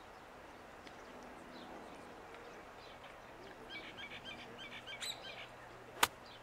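Small birds chirping in a quick series from about the middle, then one sharp click near the end as a golf club strikes a ball on a chip shot.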